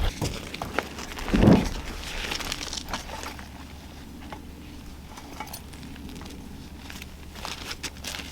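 Footsteps with crunching and rustling on the riverbank, with one louder thump about a second and a half in.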